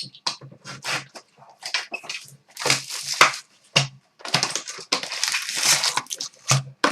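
Crinkling, tearing and crushing of plastic wrap and cardboard as a sealed box of hockey cards is opened and its packs are handled, in irregular rustling bursts with a longer stretch of tearing in the second half.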